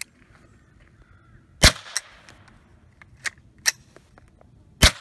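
Semi-automatic .22 LR AR-style rifle, a Smith & Wesson M&P15-22, fired in a string of sharp cracks at irregular spacing, the loudest about a second and a half in and again just before the end.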